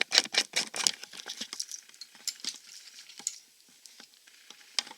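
Clattering and rattling from things being handled: a quick run of sharp clicks, then scattered lighter clicks, and one sharper knock near the end.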